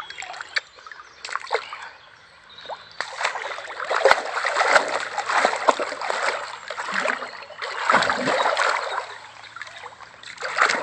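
Water splashing and sloshing as a large carp is released back into the lake, in two main bouts of splashing after a few quieter seconds.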